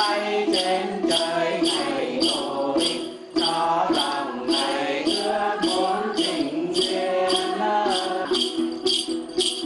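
Background music: a jingling percussion shaker struck on a steady beat, about two strokes a second, under a flowing melody.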